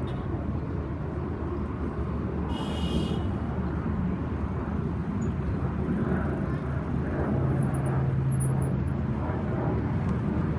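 Steady rumble of distant aircraft engines overhead. A short high whistle comes about two and a half seconds in, and a low hum joins near the end.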